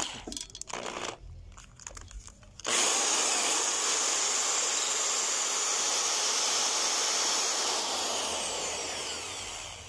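Power drill with a screwdriver bit running steadily for about seven seconds, turning a screw in a washing-machine brake housing. It starts abruptly about three seconds in, after a few light clicks of handling, and tails off near the end.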